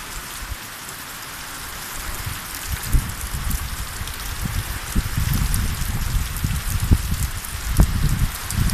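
Heavy rain falling steadily in an even hiss, with irregular low rumbles building from about three seconds in and a couple of sharp clicks.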